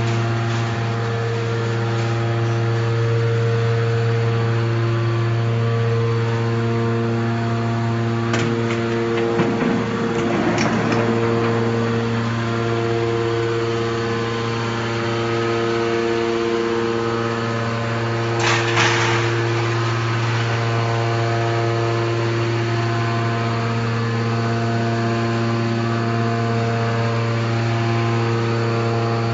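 Y81F-4000 hydraulic scrap metal baler running with a steady hum from its motor and pump. There are a few short metal clatters of scrap: two close together about a third of the way in, and one more past the middle.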